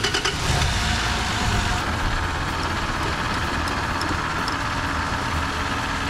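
Toyota Land Cruiser 80 engine idling steadily while its air conditioning system is being charged with refrigerant.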